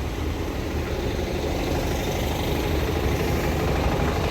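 Truck engine idling steadily, a continuous low rumble.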